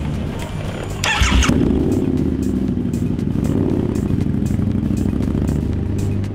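V-twin cruiser motorcycle engine starting about a second in with a short burst of noise, then running with a low steady rumble as the bike pulls away. Background music with a steady beat runs underneath.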